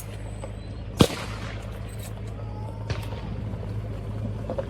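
A shotgun shot about a second in, loud and sharp with a short echo, then a fainter shot near three seconds, over a steady low hum.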